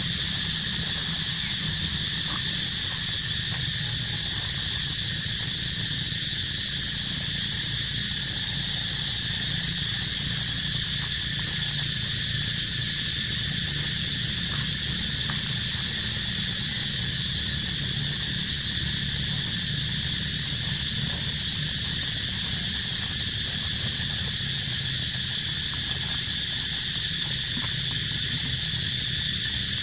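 Steady high-pitched insect chorus, a continuous shrill drone with a fast pulsing trill that swells twice, over a low steady hum.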